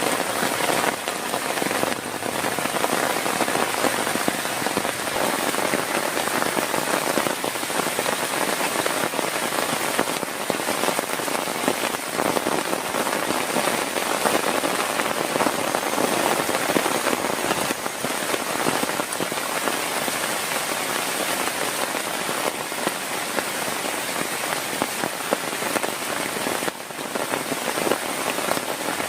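Heavy rain, a dense steady patter of countless drops hitting a surface, holding level throughout.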